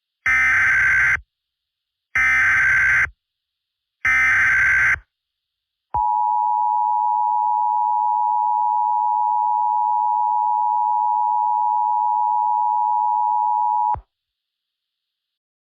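Emergency Alert System SAME header: three short bursts of data tones, about a second each, then the steady two-tone attention signal for about eight seconds, which cuts off suddenly. It signals the start of an emergency alert broadcast, here an Emergency Action Termination.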